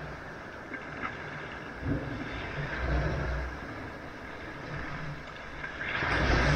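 Sea waves breaking and washing up a sandy beach: a steady wash that swells twice, the louder surge near the end.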